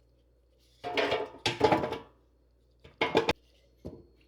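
Clattering and knocking as seasoned raw carrot chips are tipped into a metal air fryer basket and spread out: two rattling bursts, then a few sharp knocks.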